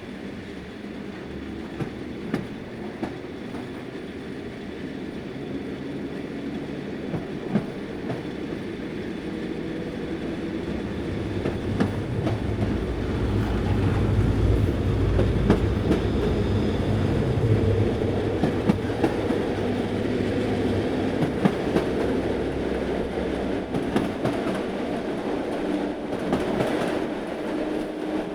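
Train running on rails, growing louder over the first half as it draws near, with a deep rumble strongest about halfway through. Sharp clacks of wheels over rail joints are scattered throughout.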